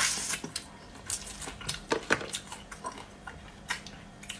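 Cooked hermit crab shell crackling and snapping as it is bitten and pulled apart by hand, with scattered clicks from chewing and handling; the sharpest crack comes right at the start and two more about two seconds in.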